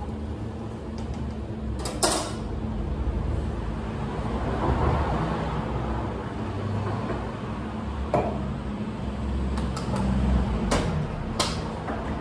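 Working espresso bar: a steady low rumble of machinery with a few sharp knocks and clatters of metal and crockery as the barista handles the espresso machine's portafilter and cups.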